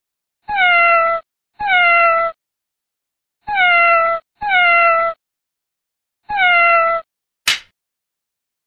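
A domestic cat meowing: five identical meows in two pairs and a single, each falling in pitch, with dead silence between them. A short sharp click comes near the end.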